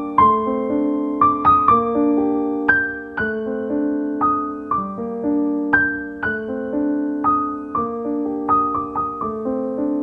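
Slow, gentle background piano music: single notes struck about twice a second and left to ring over held lower notes.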